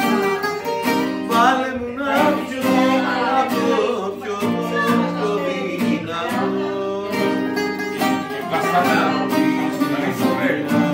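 A Greek bouzouki and an acoustic guitar playing a tune together, with a man singing along.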